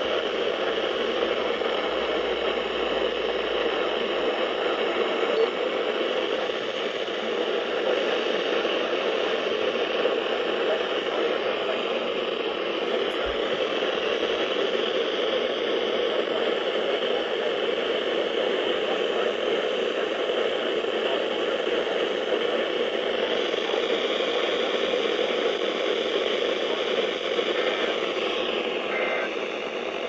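Steady radio static: an even hiss from a radio receiver with no signal coming through.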